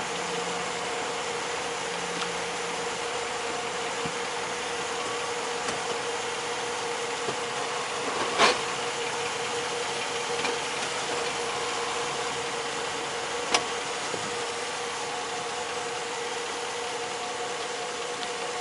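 2005 Jeep Grand Cherokee with Quadra-Drive II idling steadily, with one loud clunk about eight seconds in and a sharper click some five seconds later. The clunk is the drivetrain noise that comes only on shifting into Drive, which the owner suspects comes from the front differential.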